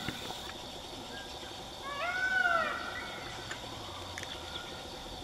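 An animal's cry about two seconds in, a single call under a second long that rises and then falls in pitch, over a faint steady background.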